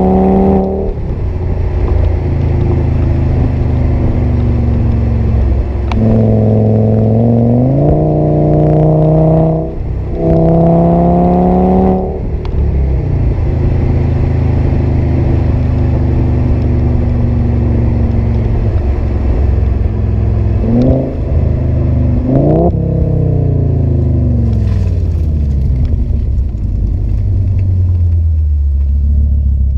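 2008 Audi S6's Lamborghini-derived 5.2-litre V10 with a partially resonated Milltek exhaust, heard from inside the cabin while driving: two pulls with the revs climbing and a brief break for an upshift between them, long stretches of steady cruising, two short sharp blips of revs about twenty seconds in, and the revs falling away steadily near the end.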